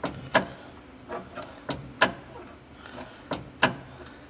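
Irregular string of sharp mechanical clicks and knocks, about two a second.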